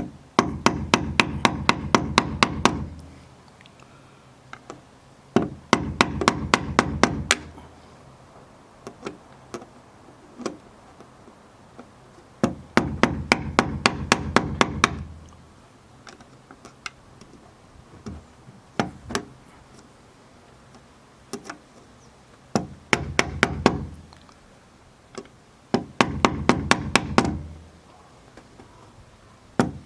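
A small motor-driven tool running in bursts of two to three seconds, with a rapid even clicking of about four clicks a second over its hum, and a few single knocks between the bursts.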